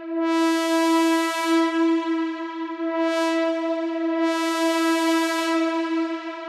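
Synthesizer imitation of a Leslie S-31 train horn, made on the Synth One app: a steady electronic horn chord that sounds in three blasts, long, short and long, each adding a hissing edge over the held tone.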